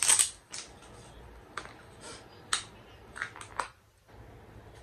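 Plastic cosmetic jar being handled and opened: a string of short clicks and crinkling rustles, with a quick cluster of them about three and a half seconds in.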